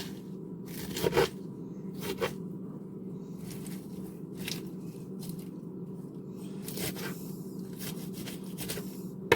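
Kitchen knife slicing through a head of lettuce on a cutting board: a string of separate crisp, crunchy cuts at an irregular pace, over a steady low hum.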